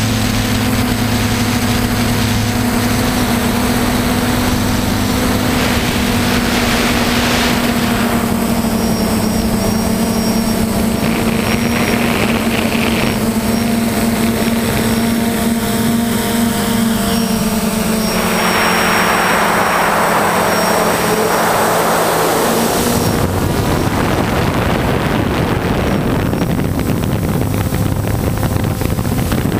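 Quadcopter's electric motors and propellers whirring, heard through the camera it carries, a steady multi-tone hum whose pitch steps up and down as it manoeuvres. Near the end the lowest hum drops away and a rushing hiss takes over.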